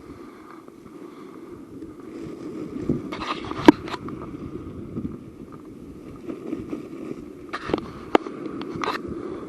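Steady low rumble of wind on the microphone, with a few sharp clicks and short rustles; the loudest click comes just past a third of the way in, and a cluster follows near the end.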